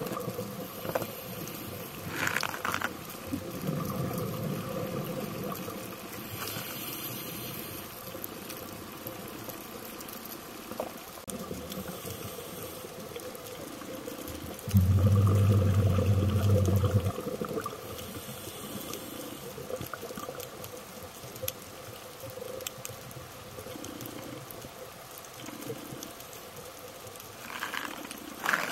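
Underwater sound of a scuba diver's exhaled regulator bubbles rushing out in bursts. The loudest burst lasts about two seconds around the middle, over a steady faint crackle of clicks.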